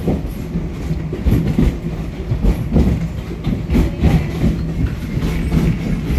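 Wildlife Express passenger train running along the track, heard from inside its open-sided coach: a steady low rumble and hum with irregular clacks and knocks from the wheels and running gear.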